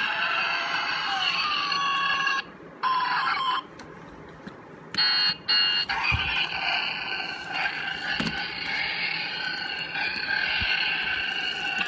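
Toy motorcycle's built-in electronic sound module playing a synthetic motorcycle sound effect through its tiny speaker. The sound is thin and tinny with no bass, and cuts out twice in the first five seconds before starting again.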